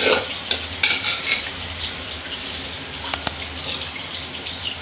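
Spiced sambar water boiling hard in an open pressure cooker, a steady bubbling hiss, with a few light clicks in the first second or so.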